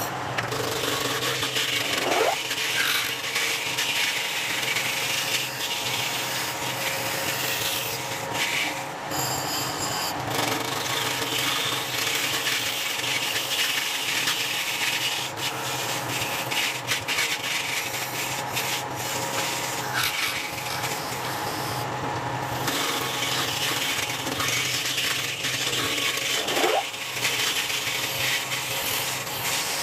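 Wood lathe turning a wooden vase while a hand-held turning tool cuts into it: a steady hiss of tool on wood and peeling shavings over the lathe motor's hum. Twice the cutting sound briefly thins as the tool eases off.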